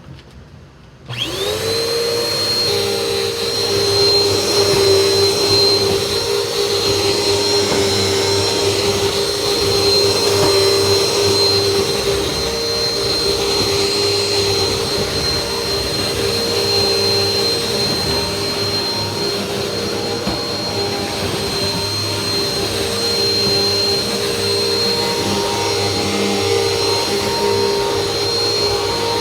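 Vacuum cleaner switched on about a second in, its motor spinning up quickly, then running steadily with a high whine over a rushing airflow as it vacuums a floor.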